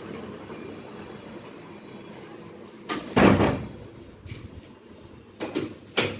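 A door being shut: a loud thud about three seconds in, then a few lighter knocks and clicks near the end.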